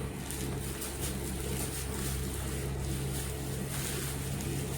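Steady low hum of a running car heard from inside the cabin.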